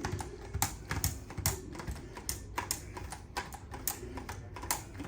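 A quick, irregular run of light clicks and taps, several a second, over low handling noise.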